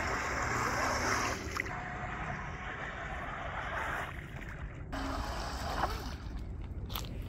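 Small RC jet boat running on a pond: the water jet churning and splashing, with a faint whine from its brushless motor. The boat is overloaded and sits too low in the water. The sound changes abruptly about five seconds in.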